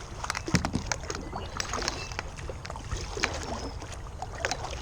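Light, irregular clicks and knocks from handling gear in a fishing kayak on the water, over a steady low rumble.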